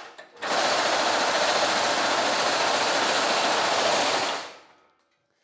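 Reciprocating hammer running, rapidly pounding a panel of woven stainless steel mesh to raise its centre section. It pauses briefly at the start, runs steadily for about four seconds, then winds down and stops near the end.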